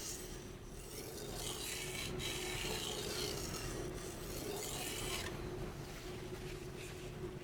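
Steel knife blade scraping across a whetstone in slow, long sharpening strokes, several in a row, over a faint steady hum.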